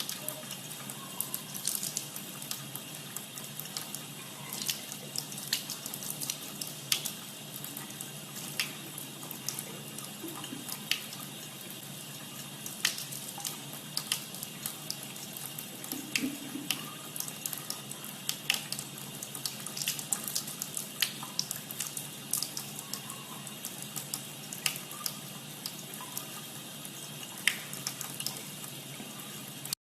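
Water running steadily, with many small splashes and drips.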